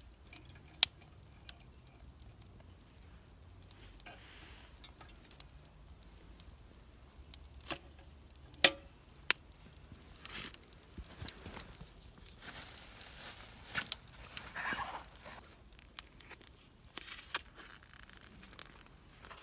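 Camp cooking by a small wood fire: scattered sharp clicks and knocks, two of them loud, with bursts of rustling and crackling in the second half.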